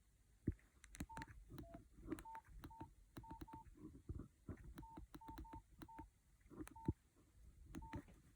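Nokia 5130 XpressMusic phone keys being pressed about a dozen times at an uneven pace. Each press gives a click and a short, high single beep; one beep is lower in pitch.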